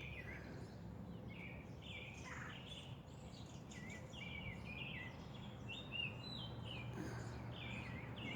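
Small birds chirping, many short quick notes one after another, faint over a low steady background hum.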